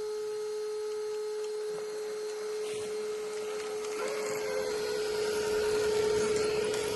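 HB R1001 RC crawler's electric motor and geared drivetrain running with a steady whine, the mechanical noise growing louder about four seconds in.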